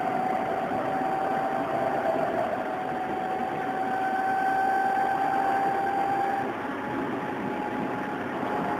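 Odakyu 8000 series electric train running, its field-chopper-controlled traction motors giving a whine that rises slowly in pitch over rumbling rail noise. About six and a half seconds in, the whine weakens and the overall sound drops a little.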